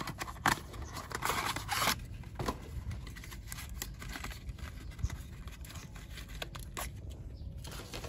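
Small cardboard toy box being opened by hand: a stretch of tearing and rustling about a second in, then scattered light clicks and taps of the packaging being handled.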